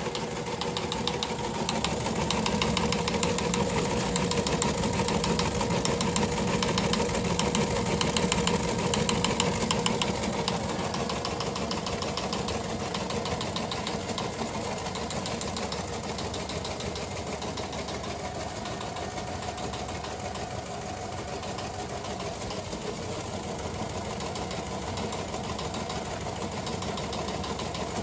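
Model 28 Teletype printer printing received radioteletype traffic: a fast, even mechanical clatter, loudest for the first ten seconds or so, then easing into the steadier sound of the machine running with a softer clatter.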